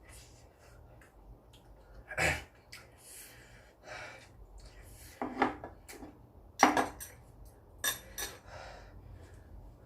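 Eating utensils clinking and scraping against a dish in a handful of separate sharp knocks, the loudest about two-thirds of the way through.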